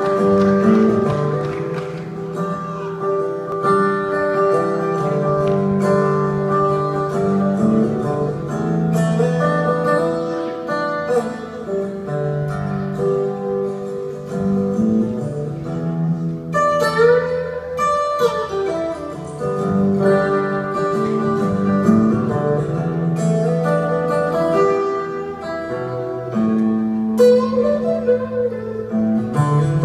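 Solo steel-string acoustic guitar playing an instrumental introduction: a picked melody ringing over sustained low bass notes.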